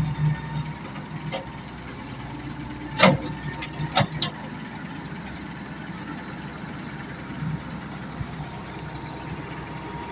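Excavator engine running steadily, with a few sharp knocks about three to four seconds in.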